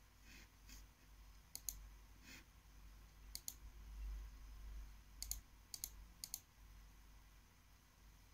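Light, sharp clicks, mostly in quick double pairs, from clicking on a laptop as its windows are opened and closed; a faint low hum sits underneath.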